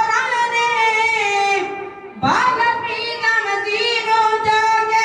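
A boy's high voice singing a Punjabi devotional poem (kavita) into a microphone, holding long steady notes. There are two phrases, with a short breath between them about two seconds in.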